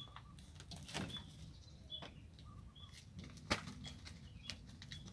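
Kittens scrabbling and scuffling on concrete and a cardboard box: light scratches and taps, with a sharp knock about three and a half seconds in. A bird chirps in short high notes about once a second behind them.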